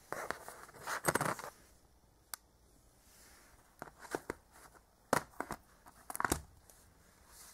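Hands handling a plastic Blu-ray case and its cardboard slipcover: short bursts of rustling and several sharp clicks and taps.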